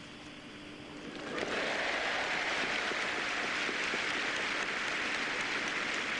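Stadium crowd applauding a point won. The clapping breaks out about a second in and then holds steady.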